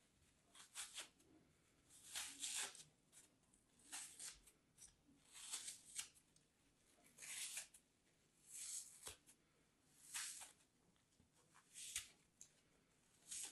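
Packed green kinetic sand being crumbled and crushed between the fingers: faint, crisp crunches, one about every second and a half.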